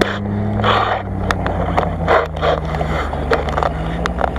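Engine of an off-road 4x4 running steadily as it tows another 4x4 across rough ground; its pitch dips briefly about three seconds in, then comes back up. Irregular close scuffing and rustling noises run over it.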